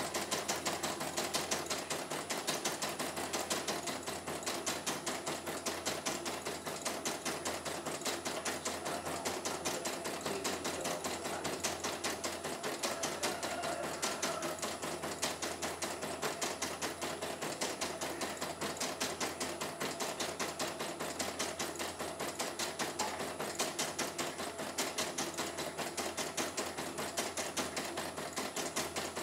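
CNY E900 computerised embroidery machine stitching a design, a fast, even rapid ticking of needle strokes with no stalls or breaks. It runs smoothly on a test run after repair.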